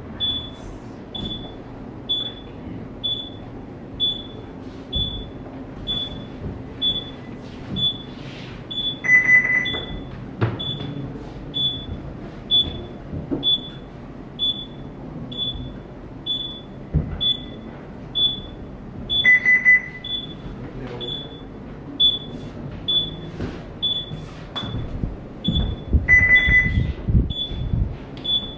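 Electronic alarm on a ship's bridge console beeping: short high beeps about twice a second, with a longer, lower beep three times. A few low knocks, most of them near the end.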